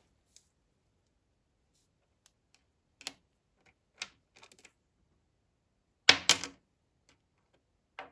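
Sparse light clicks and taps of small hard objects being handled, then two loud sharp clacks a little after six seconds in and another near the end, typical of miniature plastic toy pieces and their packaging being unboxed.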